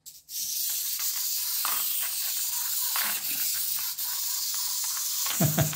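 Small clockwork wind-up motor of a plastic model elephant running down with a steady high whirr and faint ticking from its gears. The motor is fitted the wrong way round, so it drives the legs backwards.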